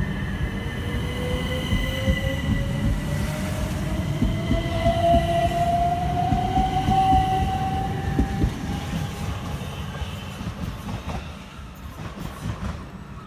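Southern Class 377 Electrostar electric multiple unit accelerating along the platform, its traction motors giving a whine that rises steadily in pitch for about eight seconds over the rumble and clatter of its wheels on the rails. The sound fades over the last few seconds as the train draws away.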